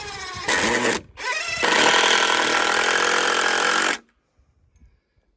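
Power screwdriver driving screws into wooden boards: the motor winds up with a rising whine, runs in a short burst, pauses briefly, then runs steadily for about two and a half seconds and cuts off sharply about four seconds in.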